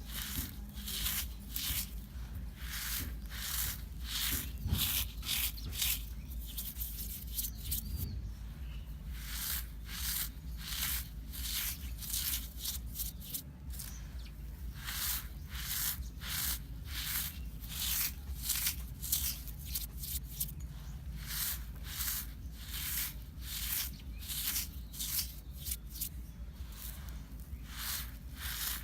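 Dry, dusty sand crumbling in a steady run of short, crisp crunching strokes, a few each second.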